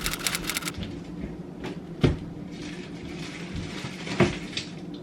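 Household handling noise: a quick run of light clicks, then two sharp knocks about two seconds apart with light rustling between them, over a steady low hum.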